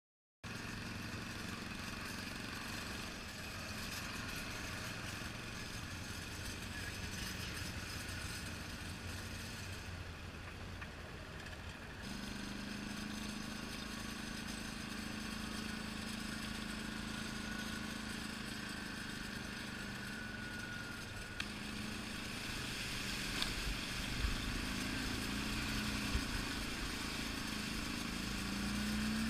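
ATV engine running as the quad is ridden along a dirt track, heard from the rider's seat. A steady engine hum comes in strongly about twelve seconds in and wavers with the throttle near the end, where a few sharp knocks are heard.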